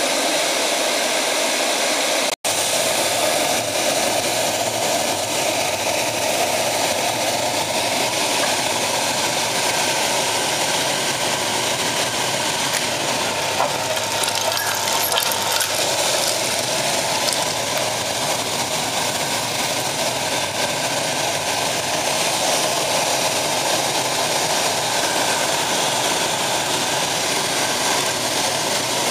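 Pellet burner running at full power, with the steady blowing rush of its combustion-air fan and flame. The sound briefly drops out a couple of seconds in, then carries on unchanged.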